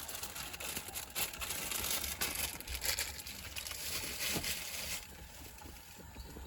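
Crinkling, rustling handling noise made of many small crackles, which drops away about five seconds in.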